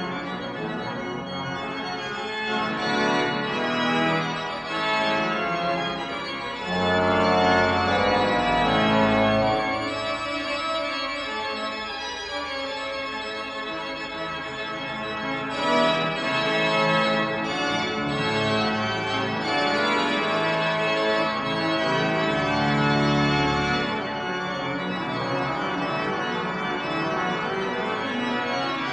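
Organ music: slow, sustained chords that change every few seconds, with deep held bass notes.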